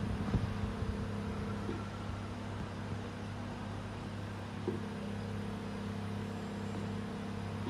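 Vacuum therapy machine's suction pump humming steadily. A higher part of the hum drops out about two seconds in and comes back with a click about five seconds in.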